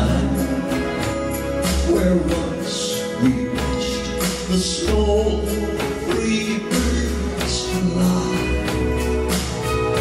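Two male voices singing a ballad into microphones over a strummed acoustic guitar, with a steady low bass underneath.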